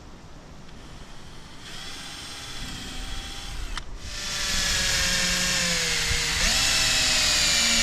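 Electric power drill running with a steady whine. It starts about two seconds in, stops briefly, then runs again louder. Its pitch sags slowly under load and jumps back up about two-thirds of the way through.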